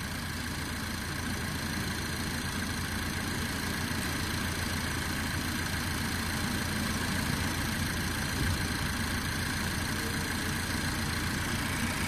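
Honda car engine idling steadily, heard in the open engine bay.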